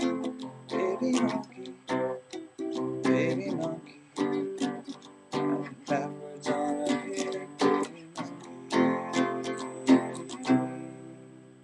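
Acoustic guitar strumming chords in a steady rhythm. About ten and a half seconds in, the strumming stops and a last chord rings out and fades.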